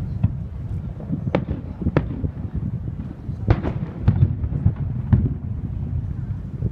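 Fireworks shells bursting: a series of sharp bangs, about half a dozen, some close together, over a steady low rumble.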